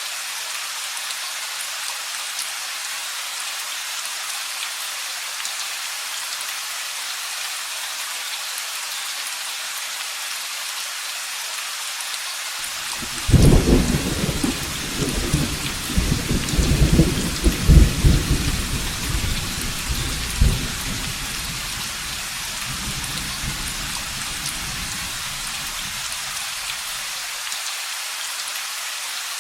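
Steady heavy rain falling, with a rolling thunderclap that breaks in suddenly about halfway through, rumbles loudly for several seconds and fades away.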